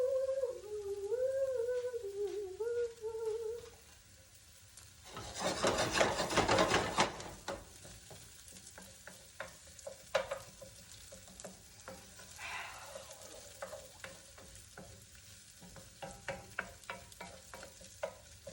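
Onion frying in hot oil in a pan and being stirred: a loud rush of sizzling about five seconds in, then a quieter crackle with scattered scrapes and taps of the spatula.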